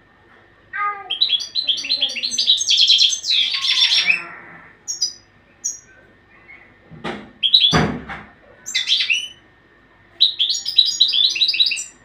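Caged European goldfinch singing: phrases of rapid, repeated high twittering notes with short pauses between them. A brief rushing noise, louder than the song, sounds about eight seconds in.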